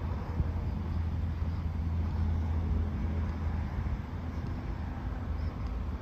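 Steady low rumble of road traffic, easing a little about three and a half seconds in.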